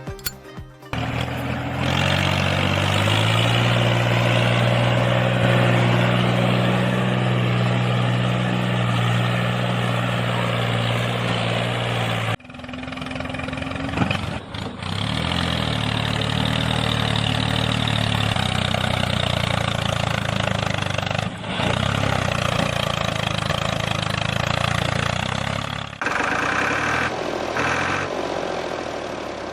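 Small engine running steadily, rising in pitch in its first couple of seconds. It cuts off abruptly about twelve seconds in and starts again, with another sudden change near the end.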